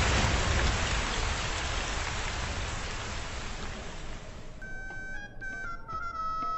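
Steady rain falling, fading out over the first four seconds or so. About four and a half seconds in, music comes in: a melody of held notes.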